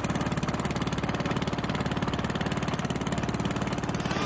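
Boat engine running steadily, a rapid, even chugging.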